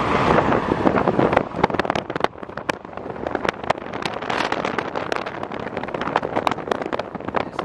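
Steady rushing of wind and car noise with many irregular sharp ticks and pops of precipitation striking the car.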